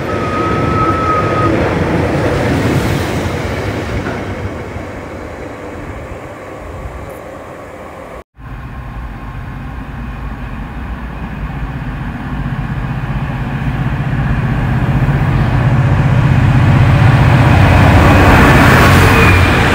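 Trains passing at the lineside. A rumble fades away, breaks off suddenly, then another train approaches with a steady low engine hum and passes close, loudest near the end.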